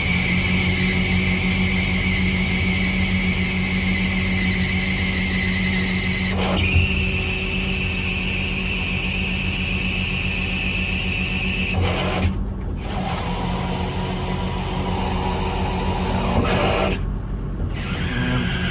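Miller Enpak engine running steadily with the hydraulic system whining as the truck's hydraulic outriggers are pulled back up. The high whine steps up in pitch about six seconds in and cuts out briefly twice, near the middle and near the end.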